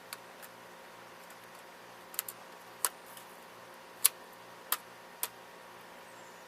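A series of about seven sharp, irregular clicks from an airsoft H&K MP5 N replica being handled, the loudest about four seconds in.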